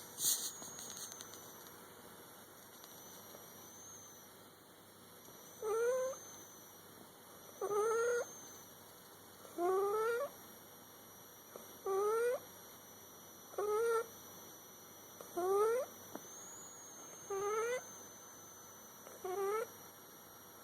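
A sleeping cat snoring: a short, rising-pitched snore on each breath, about every two seconds, eight times in a row.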